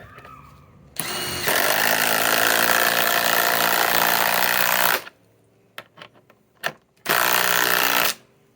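Masterforce Boost cordless impact driver hammering a large screw into solid wood with no pilot hole, which cracks the wood. A brief lighter spin about a second in gives way to about three and a half seconds of steady hammering; after a pause and a few small clicks comes a second burst of about a second.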